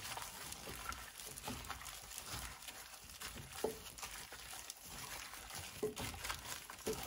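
Gloved hands mixing raw chicken drumsticks with wet green seasoning in a glass bowl: quiet, irregular squelching and the crinkle of a thin plastic glove, with a few light knocks of meat against the bowl.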